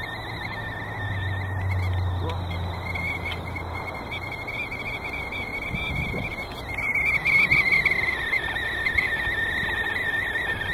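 Stovetop whistling kettle heated by a solar parabolic mirror, whistling at the boil: a continuous wavering whistle that grows louder about seven seconds in.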